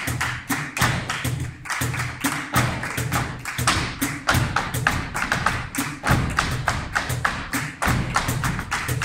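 Flamenco footwork (zapateado) on a wooden floor, stamps and heel and toe strikes, with hand-clapping (palmas) keeping a quick bulerías rhythm.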